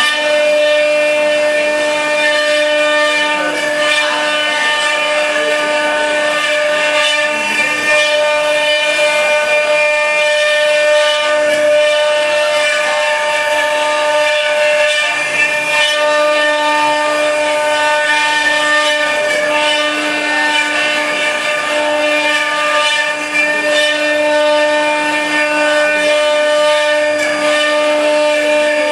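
Eight-spindle CNC wood router with rotary axes carving wooden legs: the spindles' steady high whine over the rasp of the bits cutting wood.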